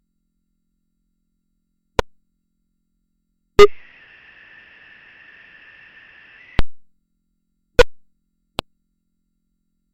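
Synthesized sound effect: five sharp, irregularly spaced clicks in dead silence, the second, third and fourth the loudest and the last short and soft. A faint steady high-pitched tone starts with the second click and cuts off at the third.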